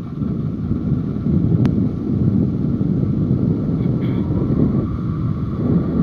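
Motorcycle running at road speed, a steady engine and wind rumble heard from on the moving bike.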